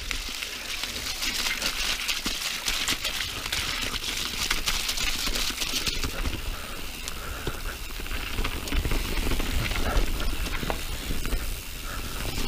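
Mountain bike descending a muddy dirt singletrack: tyres crackling over the ground, with frequent clicks and rattles as the bike goes over bumps, over a steady low rumble of wind on the microphone.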